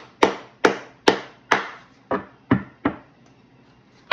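A series of sharp knocks, about seven at roughly two a second, that stop about a second before the end.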